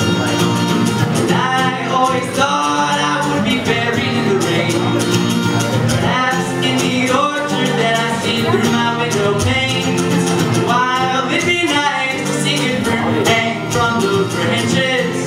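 Male voice singing with a strummed acoustic guitar.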